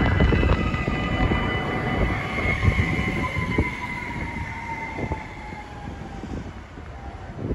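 A CAF Urbos low-floor tram braking to a stop. Its running rumble fades while a whine falls steadily in pitch as it slows, with a few light clicks along the way.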